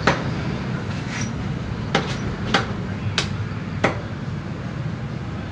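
Meat cleaver chopping chicken pieces on a wooden stump block: about six sharp chops at an irregular pace, the strongest near the start and in the middle.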